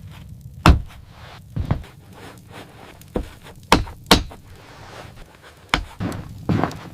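A series of about seven sharp knocks and thuds at uneven intervals, the loudest near the start, over a low steady hum.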